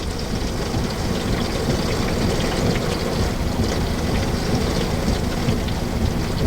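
Steady low rumbling noise with a light crackle over it, like rain or wind ambience.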